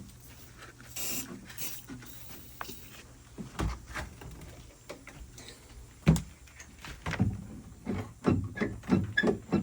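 A short hiss of WD-40 aerosol sprayed into a Jeep door's latch mechanism about a second in, then scattered knocks and one loud thump. From about seven seconds on, a fast series of metal clicks and clacks with faint squeaks as the sticking, rust-prone latch linkage is worked back and forth.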